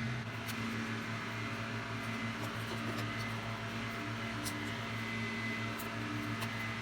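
Steady low electrical hum with a few faint, scattered ticks of small metal parts being handled.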